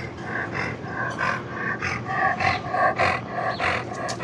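Dog panting and licking at close range, in a quick, even rhythm of about four breaths a second.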